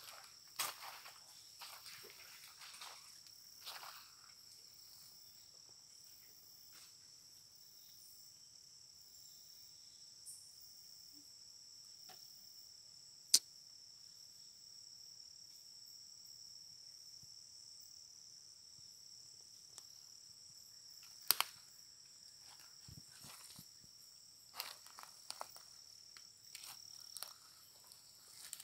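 Steady high-pitched chorus of rainforest insects, with rustling from movement near the start and again near the end, and two sharp clicks, one about thirteen seconds in and one about twenty-one seconds in.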